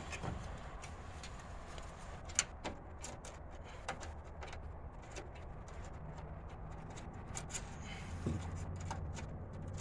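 Scattered light clicks and taps of metal fasteners being handled and started by hand into a car's radiator mounting, over a steady low hum.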